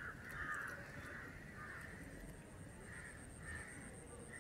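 Crows cawing: a string of short, harsh caws, several close together at first, then a pause, then a few more.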